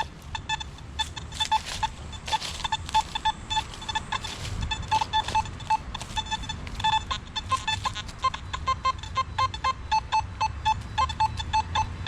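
Nokta Makro Simplex+ metal detector giving many short, quick beeps of one pitch as it is swung fast over the ground, answering buried targets in runs of chirps.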